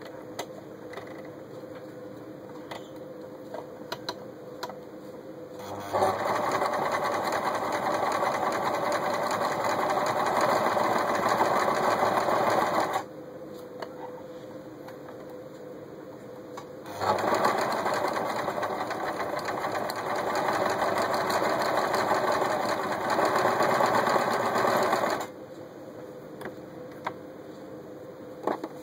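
Janome Super Automatic 348 electric sewing machine stitching through folded layers of fabric. It runs for about seven seconds starting about six seconds in, stops for about four seconds, then runs again for about eight seconds. A few light clicks fall in the pauses.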